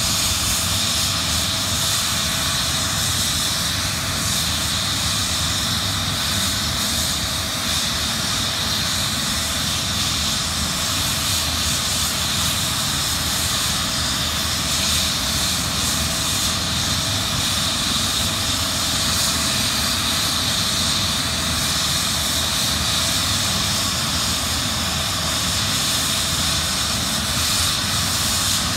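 Eurocopter EC135 helicopter's twin turbines and rotor running steadily on the ground after landing: an unbroken turbine whine over steady rotor noise.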